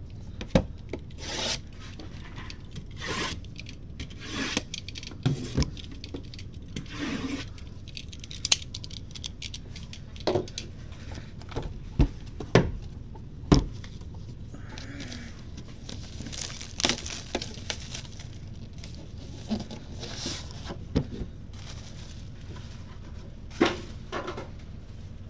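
Plastic shrink wrap being slit with a box cutter and pulled off cardboard trading-card boxes, with rustling, scraping and several sharp knocks as the boxes are handled and set down.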